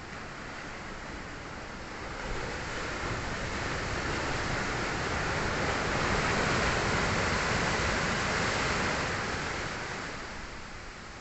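Ocean surf: a wave breaks and rushes in, the sound swelling from about two seconds in, loudest in the middle, then dying back near the end.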